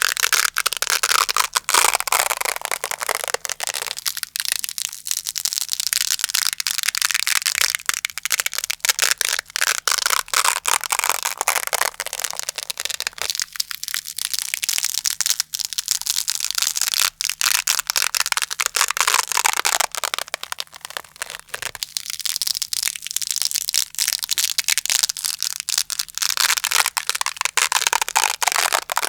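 Velcro hook-and-loop fastener being slowly pulled apart, a dense crunchy crackle in slow strokes a few seconds long that swell and fade.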